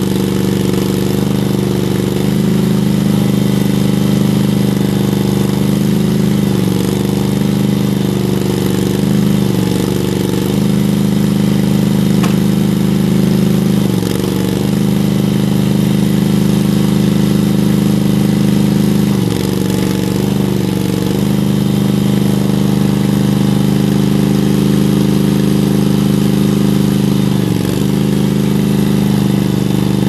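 24 HP Honda two-cylinder gas engine of a Lay-mor LB30 backhoe running steadily, dipping briefly in pitch about eight times as the backhoe boom and bucket are worked.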